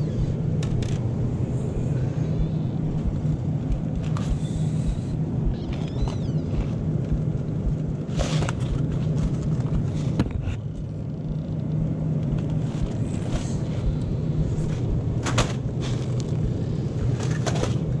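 Steady low hum of a supermarket freezer aisle, with scattered short rustles and knocks as frozen-meal boxes are handled at an open glass freezer door.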